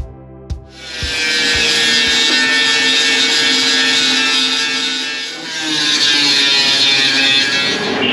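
Angle grinder grinding rust off the steel lower body panel of a 1958 MGA, a loud rasping whine that starts about a second in. It eases off briefly about five seconds in, then bears down again.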